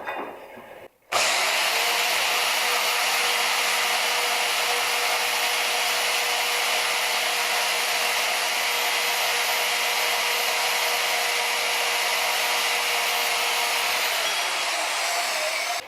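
WEN 94396 portable metal-cutting bandsaw running and cutting through a thick piece of brass. A steady motor whine mixes with the hiss of the blade on metal. Near the end the whine falls in pitch.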